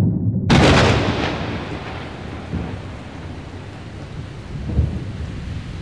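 A thunderclap: a sharp crack about half a second in over a low rumble, then a long rolling rumble that slowly fades.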